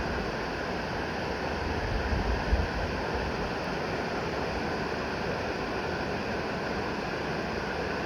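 Steady rushing of a creek running high after rain, with some wind rumble on the microphone in the first few seconds.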